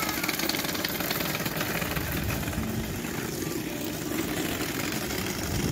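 Children's ride-on drift carts rolling along a paved path, their small hard wheels making a steady, rough rolling noise.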